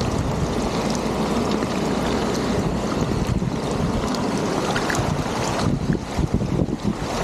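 Steady rush of flowing water with scattered small splashes, mixed with wind noise on the microphone.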